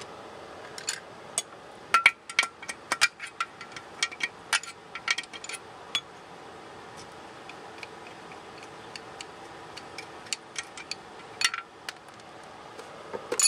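Irregular metallic clicks and clinks of a hand wrench working on the metal fittings of a sterndrive outdrive, thick for the first half, then sparse, with a sharper clink at the very end.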